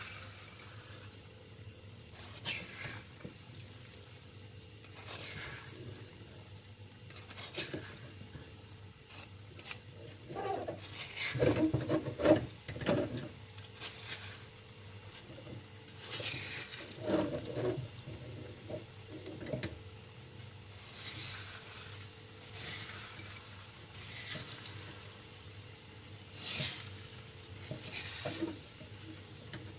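Wooden spatula stirring sugar-coated peanuts in a metal pan, the nuts scraping and rattling against the pan in a stroke every two or three seconds. The stirring is louder about eleven to thirteen seconds in and again around seventeen. It is kept up so the sugar sticks to the peanuts and they don't stick to the pan.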